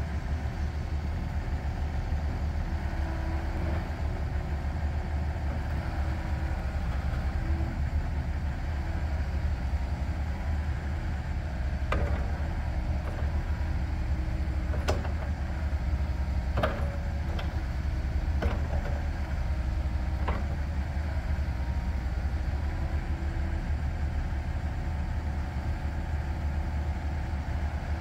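97 hp diesel engine of a Komatsu PC138USLC-11 hydraulic excavator running steadily with a low drone while the machine works its boom and bucket. Several sharp knocks come about halfway through.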